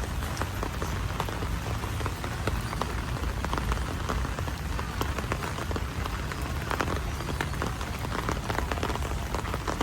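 Heavy rain falling steadily: a dense, even hiss scattered with many sharp individual drop hits close by, over a low rumble.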